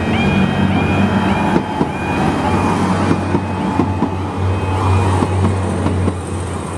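Northern Ireland Railways C3K diesel multiple unit passing at speed: a steady diesel drone with wheels clicking irregularly over the rail joints. Through it the level crossing's alarm keeps repeating its short rising warble tones.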